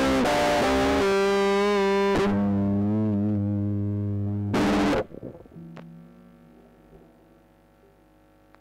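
Distorted electric guitar playing a lead over a backing track, ending on a long, wavering held note. A short loud final hit stops abruptly, and the guitar rings out and fades away.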